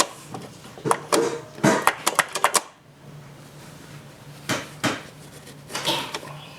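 Metal tools and parts clattering and knocking as they are handled during a washing-machine repair. A quick run of clicks comes in the first few seconds, then a few scattered knocks, over a low steady hum.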